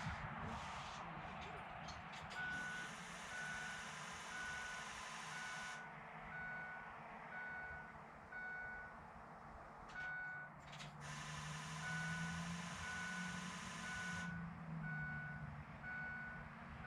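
Pickup truck's electronic warning chime, a single tone beeping about once a second, starting about two seconds in, with a faint hiss coming and going.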